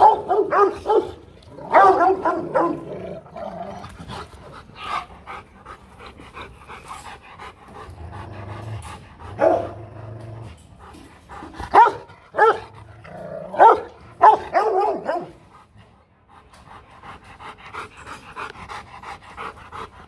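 Rottweiler barking: deep, aggressive threat barks in several loud bouts. Near the end the barking stops and the dog pants rhythmically.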